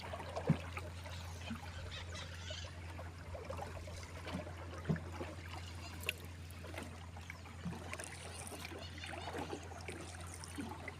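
Water trickling and lapping around a small boat, with a few short knocks against the hull. A steady low hum runs underneath.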